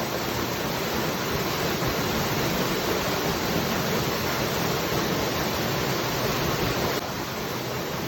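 Waterfall: water pouring and splashing in a steady, unbroken rush, a little quieter from about seven seconds in.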